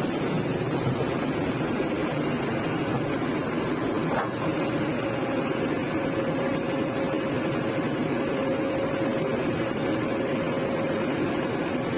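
Kobelco SK200 hydraulic excavator's diesel engine running steadily. About four seconds in there is a light click, and a faint steady whine comes in and holds.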